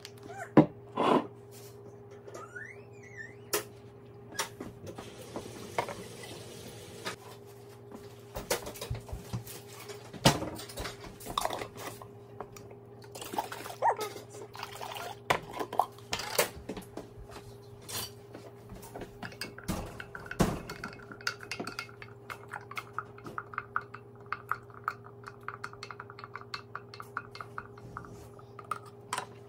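Kitchen clatter of a glass mason jar being filled: knocks and clinks of glass on a countertop, liquid pouring and running into the jar, then a wooden spoon stirring inside the jar with rapid light taps against the glass.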